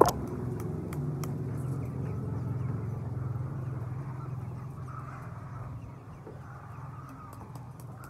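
A flock of chickens calling in a poultry shed, over a low steady rumble that swells and then fades over the first six seconds. A sharp knock comes right at the start.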